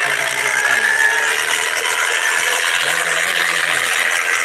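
Tractor diesel engines running hard under load as two tractors pull against each other in a tug-of-war, a loud, steady mechanical din.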